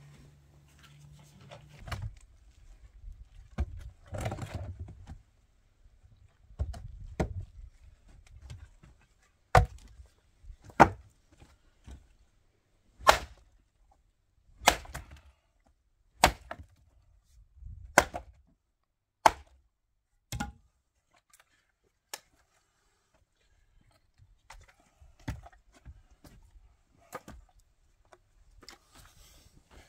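A tool striking wood in a run of about eight sharp, separate blows, one every second or two, after some rustling and handling noise.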